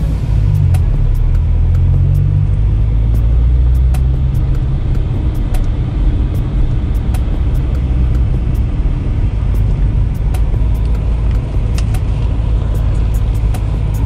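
BMW E92 M3's V8 engine running while the car is driven: a steady low drone whose pitch shifts during the first few seconds, then holds fairly even.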